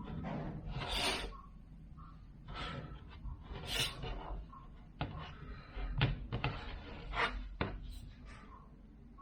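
Several short rubbing or wiping strokes on a tablet's glass screen protector, with a few sharp taps and clicks of the tablet being handled.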